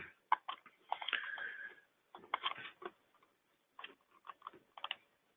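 Faint, irregular clicks and short noises, a dozen or so spread over a few seconds with silence between them, heard through a narrow-band conference-call line.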